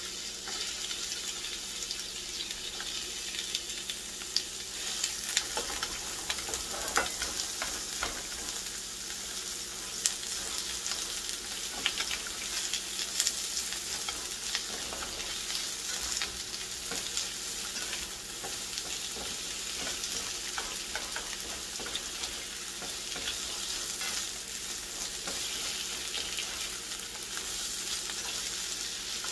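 Sliced onions sizzling steadily as they fry in vegetable oil in a skillet, with scattered short clicks and scrapes as a plastic slotted spatula stirs them.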